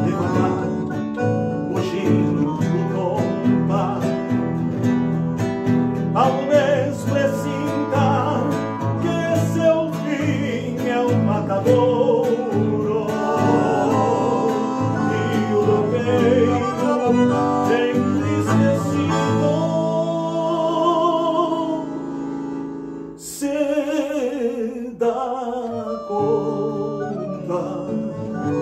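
A man singing to the accompaniment of a piano accordion and an acoustic guitar, both playing steadily beneath the vocal melody.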